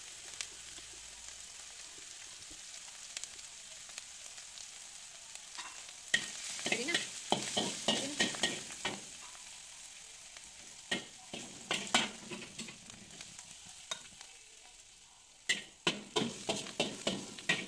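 Salted mustard greens with ground pork sizzling in a wok, with a metal spatula scraping and clacking against the pan in runs of strokes: one from about six to nine seconds in, a few near twelve seconds, and another near the end as the last of the dish is scraped out.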